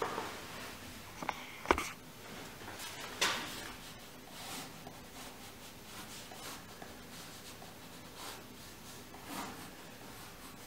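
Two sharp knocks, the louder about two seconds in and a second one a little after three seconds, then the faint scratch of a pen drawing short strokes on paper laid on a wooden drawing board.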